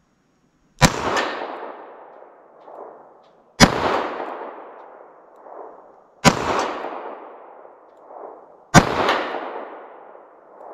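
.38 Special snub-nose revolver with a 2-inch barrel firing four shots about two and a half seconds apart, loaded with 158-grain lead round-nose handloads doing under 700 feet a second. Each report trails off slowly, and a fainter sound follows each one about two seconds later.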